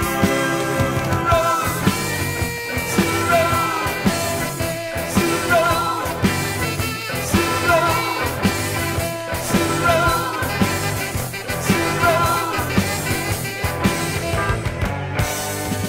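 Rock band music playing with a steady beat and a melodic lead line.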